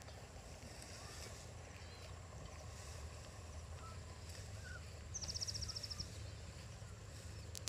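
Faint outdoor field ambience: a steady low rumble with a few faint bird chirps. About five seconds in, a high, rapid trill of about a dozen notes lasts under a second.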